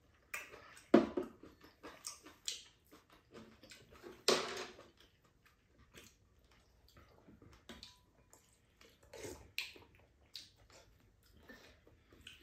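Mukbang eating noises from two people at a table: irregular slurps and chewing. Two louder slurps come about one and four seconds in, among short scattered clicks of chopsticks and spoons on bowls.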